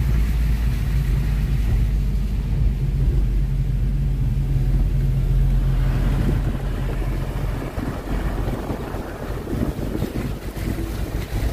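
Car engine and road noise droning steadily while climbing a steep mountain road. From about six seconds in, wind buffets the microphone in rough gusts.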